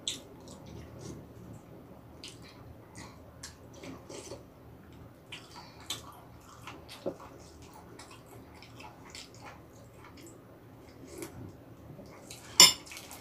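Quiet eating sounds: small wet mouth clicks while chewing a mouthful of soup tteokbokki, with one sharp clink of a utensil against a bowl near the end.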